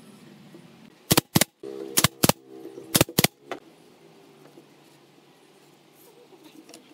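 Pneumatic brad nailer firing six nails in three quick pairs, each shot a sharp crack, with a low hum under the middle shots.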